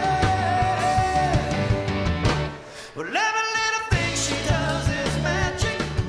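Live rock band playing: electric guitar, keyboard and drums with a male lead vocal. About halfway through the band drops out, one held note sounds alone for about a second, and then the full band comes back in.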